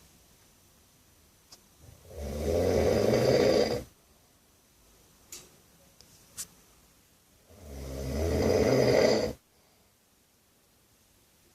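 A man snoring loudly: two long snores about five and a half seconds apart, each swelling over a second or two and then stopping suddenly.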